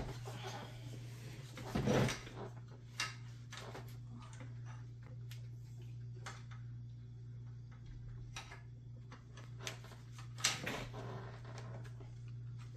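Scattered clicks, taps and knocks of a screwdriver, screw and small metal bracket being worked inside a desktop computer case, over a steady low hum.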